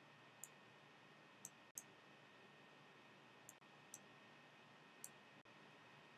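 Near silence with a faint steady hiss and five soft, sharp clicks spread over the few seconds, from a computer mouse while its pointer works an on-screen colour wheel.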